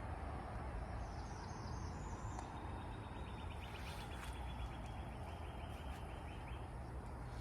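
Steady outdoor background noise with a low rumble, over which a faint, rapid, high-pitched trill runs for about four seconds in the middle, after a few short high chirps.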